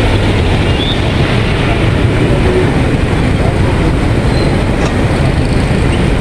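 Steady rushing of a fast, flood-swollen river in spate, loud and even, heaviest in the low end.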